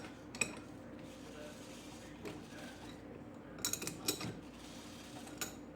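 Scattered sharp metallic clicks and clinks of hand tools being handled, with a cluster of them a little past halfway, over a steady low hum.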